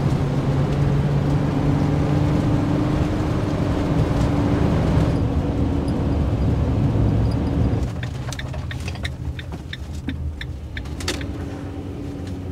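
Camper van driving, heard from inside the cab: a steady engine hum and road noise at speed. About eight seconds in it drops to a quieter low-speed run, with a few light clicks.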